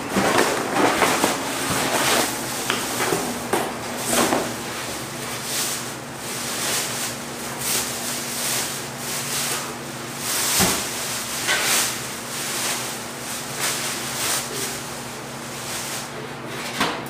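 Grill parts being unpacked and handled: continuous rustling and scraping of packaging with repeated knocks and clunks of metal, over a faint steady hum.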